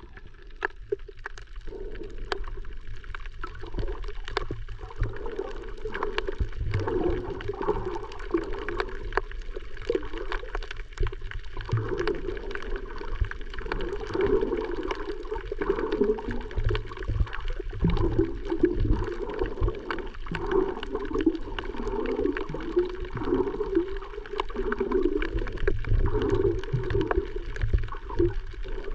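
Water gurgling and sloshing, heard muffled as from underwater, with a deep rumble and scattered small clicks.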